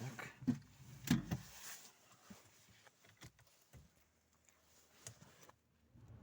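A few knocks and clunks with some rustling, the loudest about a second in, from things being handled in and around the car.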